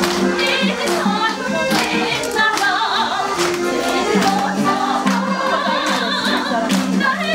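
Singing and music with a steady beat of hand-claps, as seated people clap along to a dance.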